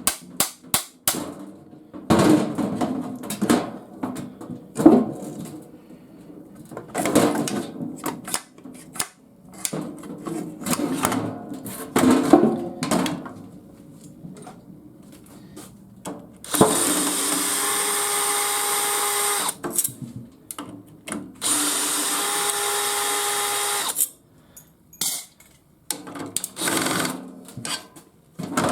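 Knocks and rattles of parts being handled while a garage door opener is taken apart, then a power drill running twice for about three seconds each, a steady even whine, about halfway through.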